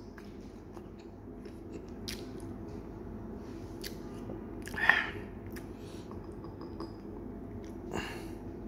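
Person chewing food, with scattered soft clicks and a short louder mouth sound about five seconds in, over a steady low hum.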